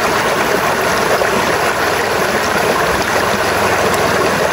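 River water rushing over rocks close to the microphone: a loud, steady rush.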